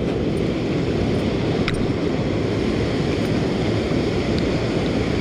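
Steady rushing noise of wind on the microphone and river water washing against a concrete wall, with a faint tick near the middle.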